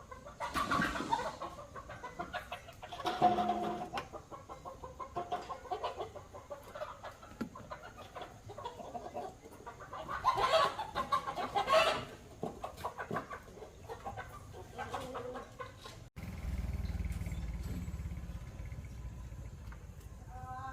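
Chickens clucking, with louder calls near the start and again about ten seconds in. About three-quarters of the way through, the sound cuts to a steady low hum.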